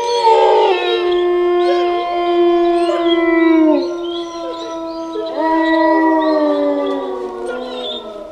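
Werewolf howl sound effect: a long howl held at a steady pitch with other howls layered over it, then a second howl from about five seconds in that slides down in pitch and fades out near the end.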